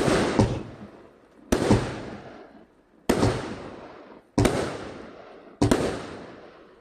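A 100-shot fireworks cake firing shot after shot, five in all, about one every second and a half. Each shot is a sharp bang with a second crack a fraction of a second later, fading away over about a second.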